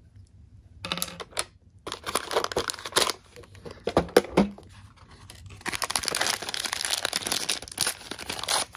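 Hard plastic toy packaging being handled: scattered clicks and knocks as the case is turned and opened, then about three seconds of crinkling and tearing of wrapping near the end.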